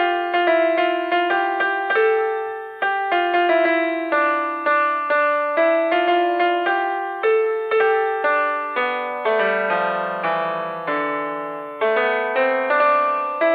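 Background music: a gentle piano or electric-piano melody of struck notes, a few a second, each fading before the next.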